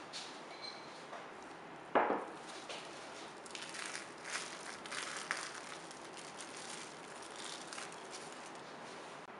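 A glass bowl set down on a wooden table with one sharp knock, then plastic cling film crinkling and crackling as it is peeled off the bowl.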